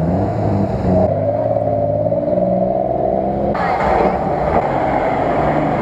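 Off-road 4x4 engines running as the vehicles drive through water and mud, the engine sound changing abruptly twice.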